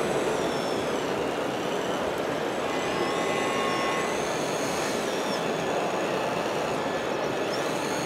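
Radio-controlled hydraulic excavator model: its pump and electric motors whine, rising and falling in pitch as the arm and bucket move, with a brief higher whine about three seconds in. Steady background noise runs underneath.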